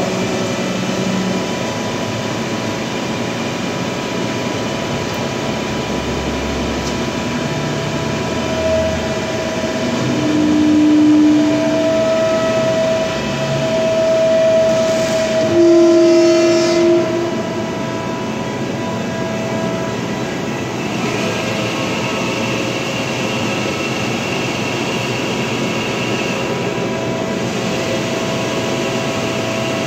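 Giddings & Lewis G50-T CNC horizontal boring mill running under power. A steady mechanical hum carries whining tones that come and go and change pitch as its drives run. It is louder in the middle stretch, and a higher whine joins for a few seconds near the end.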